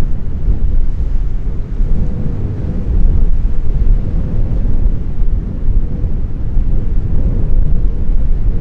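Wind buffeting the microphone: a loud, low rumble that swells and eases in gusts.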